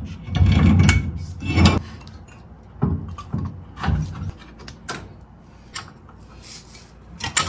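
Metal brake parts being handled on the axle: knocking, clinking and scraping as a caliper bracket is moved, with the loudest knocks in the first two seconds and scattered clicks after.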